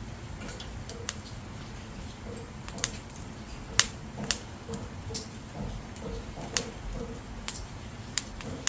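Dried firewood burning, crackling with irregular sharp pops over a low steady rumble of flames; the loudest pop comes a little before the middle.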